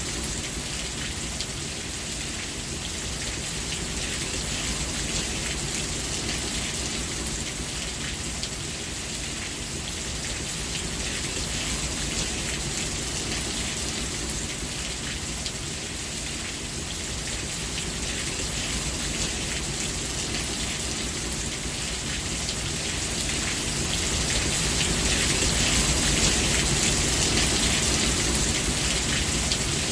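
Steady rain falling, an even hiss of drops with a low rumble beneath, swelling louder for a few seconds near the end.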